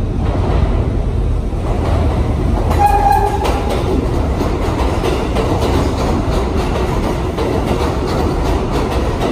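R62A subway train rumbling into an underground station. A short horn blast sounds about three seconds in, followed by a steady run of wheel clicks over the rail joints.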